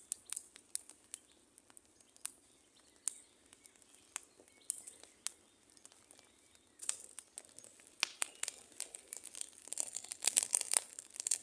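Campfire crackling: scattered sharp pops and snaps, turning into a dense, louder crackle over the last few seconds.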